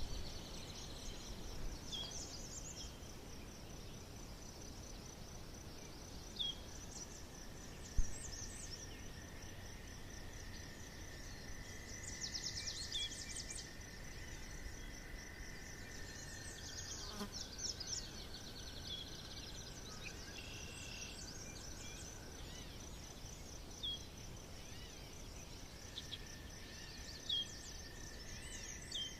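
Forest ambience: a continuous high, rapidly pulsing insect trill, with short bird chirps and brief bursts of birdsong scattered through. A thin steady tone sounds through the middle and again near the end, and a single sharp tap comes about eight seconds in.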